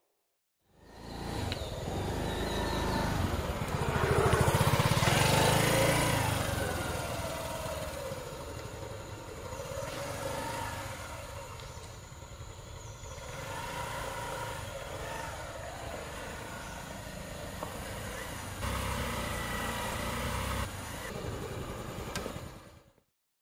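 Small motor scooter engine running as the scooter rides up and slows to a stop. The sound is loudest about four to six seconds in and swells again near the end before cutting off.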